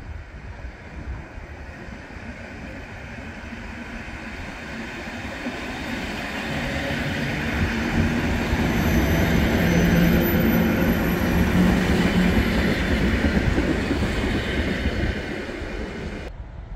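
Electric multiple unit passenger train running along the platform: rail and wheel noise that grows louder as the cars draw level, with a low steady hum under it about midway, then eases off near the end.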